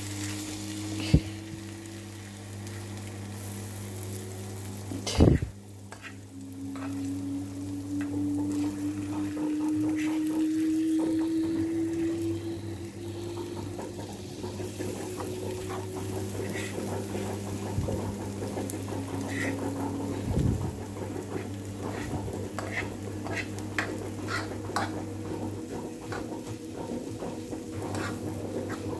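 Mushrooms and eggs sizzling in a non-stick frying pan while a fork stirs and scrapes through them, with a sharp knock of the fork on the pan about five seconds in. A steady low hum with a slowly rising tone runs underneath.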